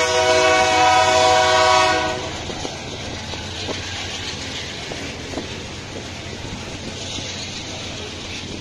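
A locomotive horn sounds one long chord of several tones for about two seconds, then stops. Under it and after it, a freight train of hopper wagons rolls past with a steady rumble and faint clicking of wheels over the rail joints.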